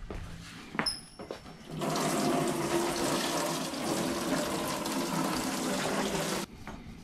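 Water running from a rainwater tank's tap and splashing into a plastic pier-cap mould held under it to rinse it clean. The flow starts about two seconds in and cuts off suddenly near the end, with a brief high squeak just before it starts.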